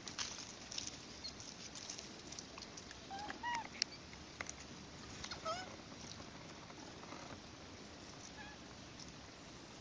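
Japanese macaque giving short coo calls, each rising and falling in pitch: two clearer ones about three and a half and five and a half seconds in, a fainter one later, among scattered light clicks.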